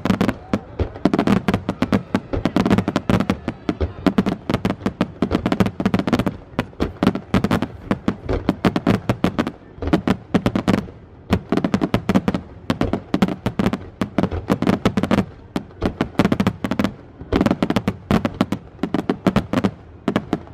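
Aerial firework shells bursting close overhead in rapid, dense succession, many sharp bangs a second, coming in waves with brief lulls.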